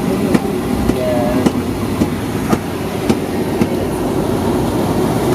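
Cabin noise of a Boeing 757-200 taxiing: a steady rumble from the Rolls-Royce RB211 engines and the rolling landing gear, with a run of sharp clicks about every half second or so as the wheels roll over joints in the taxiway.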